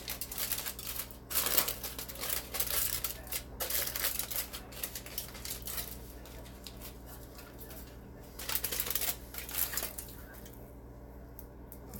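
Aluminium foil crinkling and rustling as it is handled in the hands, in dense bursts for about the first six seconds and again briefly a few seconds later.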